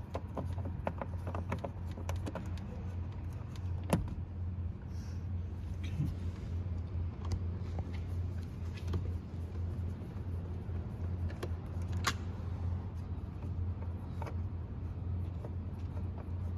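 Scattered small clicks and knocks of a screwdriver and screws being worked and the lower dash trim being pulled down, with sharp clicks about four and twelve seconds in, over a steady low hum.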